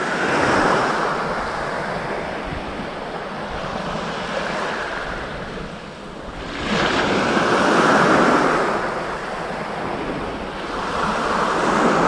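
Sea waves breaking and washing up on the shore, with wind buffeting the microphone; the surf swells loudest about six and a half seconds in and again near the end.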